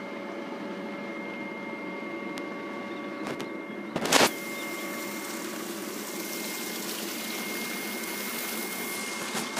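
Water running in an aquaponics system with a steady pump hum. A brief loud knock comes about four seconds in, after which the water hiss turns brighter.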